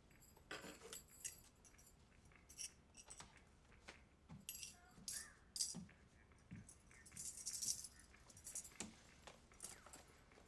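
Faint scattered clicks, rattles and rustles of small objects being handled, with a longer hissing rustle about seven seconds in.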